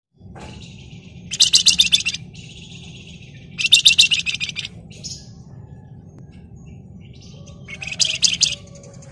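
Flamboyan (wergan Jawa) songbird singing three bursts of rapid, shrill, rattling trills, each about a second long, with softer calls in between, over a steady low hum.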